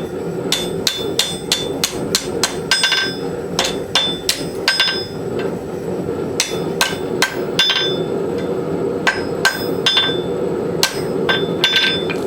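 Hammer blows on hot rasp steel against an anvil, ringing strikes about two to three a second in runs broken by short pauses, as the forge-welded tomahawk eye is cleaned up and squared. A steady forge roar runs underneath.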